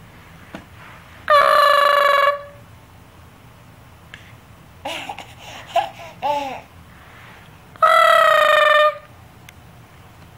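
A voice imitating Chewbacca's Wookiee howl: two loud, long calls of about a second each, one about a second in and one near the end, with a few shorter, softer vocal yelps in between.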